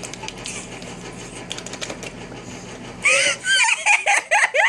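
Faint crackling and rustling, then about three seconds in an outburst of high-pitched giggling.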